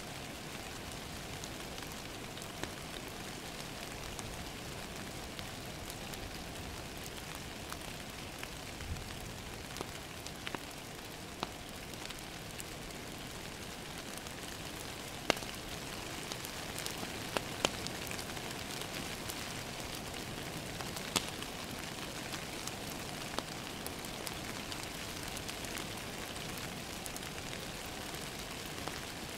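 Steady rain falling against a window, with a wood fire crackling and giving scattered sharp pops, a few louder ones in the second half.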